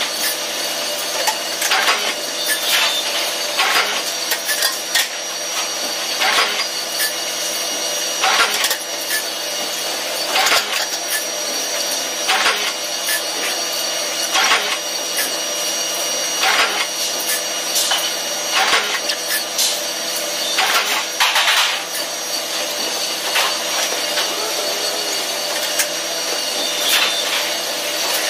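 Steady hum of shop machinery, likely the press brake's hydraulics running, with short scraping and clanking strokes from sheet metal being handled, about one every one to two seconds.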